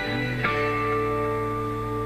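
Background music: an instrumental passage of held chords that change about half a second in.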